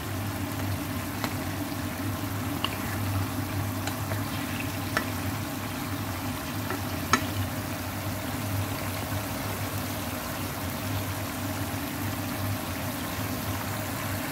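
Cauliflower, tomato and fish balls frying in a thin sauce in a wok, a steady sizzle over a low hum. A few light clicks from a wooden spatula against the pan come in the first half.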